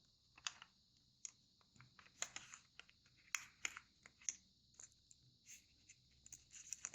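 Faint, scattered ticks and light rustles of a sheet of origami paper being folded and creased by hand.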